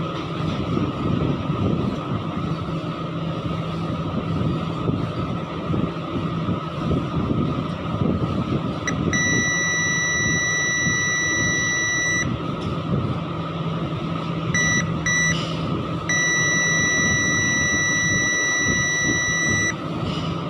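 An electronic beep, a clean high tone held for about three seconds, then two short blips, then held again for about three and a half seconds, over a constant loud rumble and hiss.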